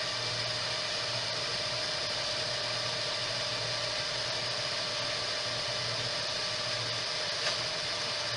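Dell PowerEdge R720 server's cooling fans running steadily, a loud even whir with a constant whine.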